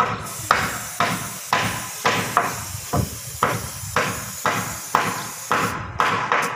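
Aerosol can of paint remover spray handled at steel rebar: sharp clacks about twice a second, each trailing off in a brief hiss.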